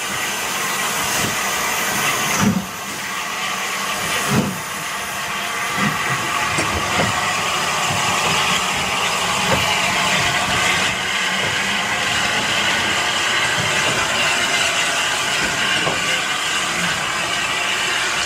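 SR U Class 2-6-0 steam locomotive No.1638 moving off slowly with a steady loud hiss of steam from its open cylinder drain cocks. Two heavy knocks come about two and a half and four and a half seconds in, then lighter knocks now and then.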